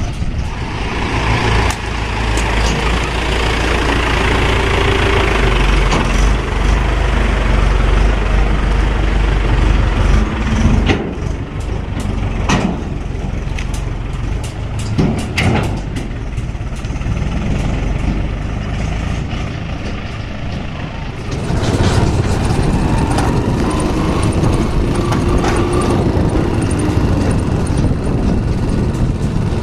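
Heavy diesel engines of a backhoe loader and trucks running steadily at mud loading. Several short, sharp knocks and hisses come in the middle, and the engine sound swells about two-thirds of the way through.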